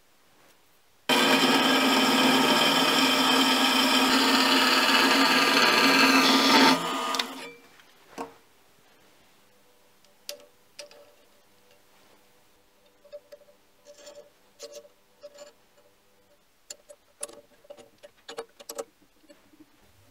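Mini lathe running loudly for about six seconds, then stopping abruptly. After it come scattered light metallic clicks and taps as the chuck and work are handled.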